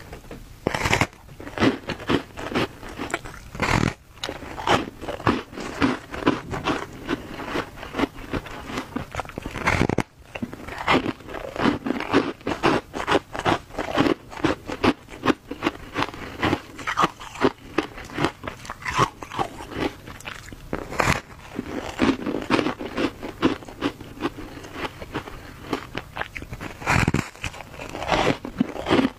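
Close crunching bites and chewing of a block of frozen ice dusted with matcha powder: a few crunches a second, with several louder bites.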